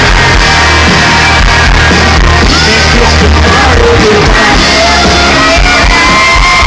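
Live country band playing at full volume, with the crowd shouting and singing along.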